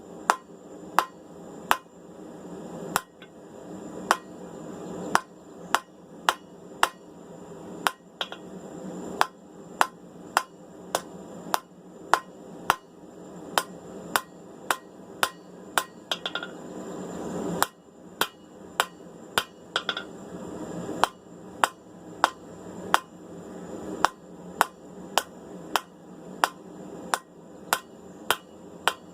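Hand hammer striking hot steel tong stock on an anvil, about two blows a second, with a short pause just past halfway.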